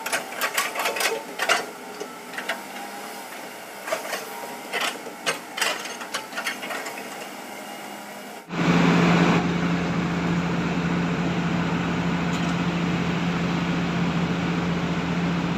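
Hitachi excavator working soil at a stream bank: irregular clanks and knocks from its tracks and bucket over a faint engine hum. About eight and a half seconds in, the sound switches abruptly to a louder steady drone with a low hum, along with rushing stream water.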